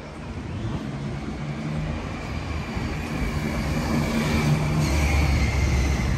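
Road traffic: a motor vehicle's engine running and growing steadily louder as it approaches along the street, over general traffic noise.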